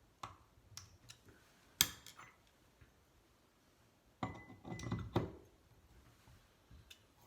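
Small metal faucet hardware and tools clinking and knocking as a screw is refitted on a bathroom faucet: a few light taps, one sharp clink about two seconds in, then a cluster of knocks with a brief ringing note around four to five seconds in.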